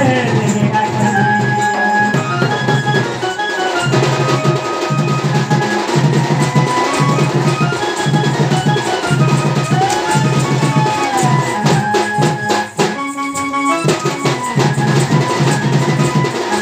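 Folk dance music: a double-headed barrel drum beaten in a steady, driving rhythm, with a melody line over it. The drum pattern briefly breaks about thirteen seconds in.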